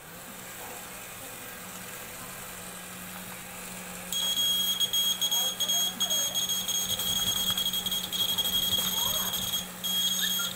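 A small DC gear motor hums steadily as it turns the seismograph's paper drum. About four seconds in, a piezo buzzer starts a continuous high-pitched alarm tone that breaks off briefly near the end: the earthquake detector's alarm going off.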